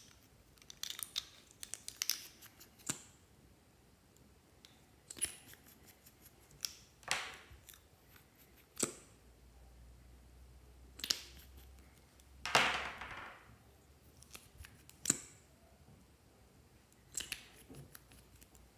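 Plastic lip gloss tubes with umbrella-shaped caps handled close up: caps pulled off, plastic clicking and tapping. It comes as scattered sharp clicks with short scrapes between, the longest a scrape of about a second a little past halfway.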